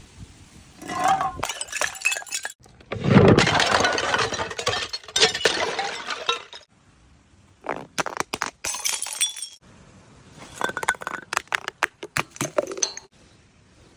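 Glass bottles breaking in several separate bursts. The largest, about three seconds in, starts with a heavy impact and then a few seconds of shattering glass. Shorter clusters of sharp glass clinks and cracks follow later.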